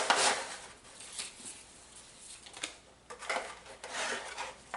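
Hands handling a boxed pair of earbuds and their packaging: scattered rustles, rubs and small clicks, loudest at the start.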